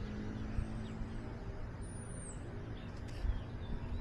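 Outdoor background of steady low rumble and faint hum, with a bird giving one high, arching chirp about two seconds in.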